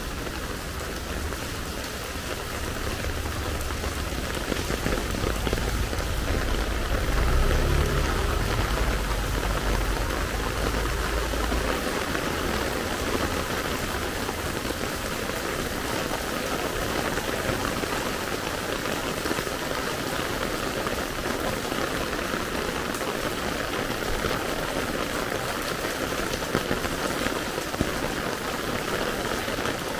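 Heavy rain pouring onto wet street pavement, a dense steady hiss. A low rumble runs underneath and stops about twelve seconds in.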